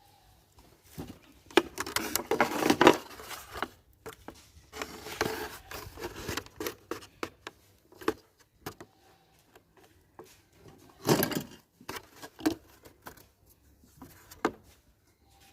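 Irregular rustling, scraping and clicking of a plastic bottle being handled and worked by hand. The busiest stretches come in the first few seconds, with a loud scrape or crinkle about eleven seconds in.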